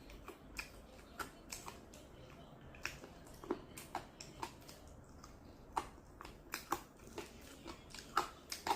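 Eating sounds of someone working through spicy chicken wings: short, irregular wet clicks and smacks, about two or three a second.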